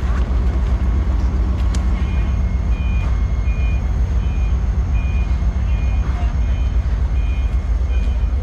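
A vehicle's reversing alarm sounding a short high beep over and over, starting about two seconds in and stopping near the end, over a steady low rumble.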